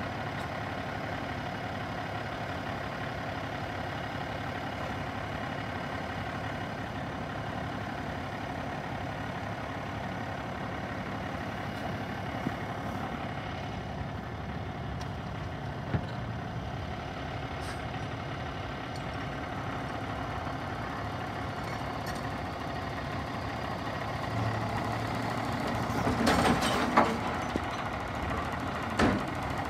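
Side-loading garbage truck's diesel engine idling steadily. In the last few seconds the engine comes up and the lift arm dumps a cart into the hopper, with a burst of clattering and a bang.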